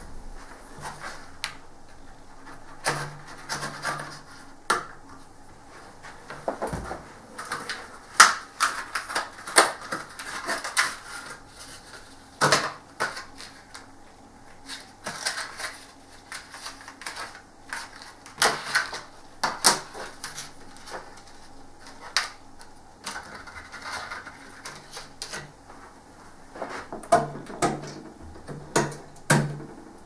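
Computer parts and packaging being handled during a PC build: irregular clicks, taps and knocks, some in quick clusters.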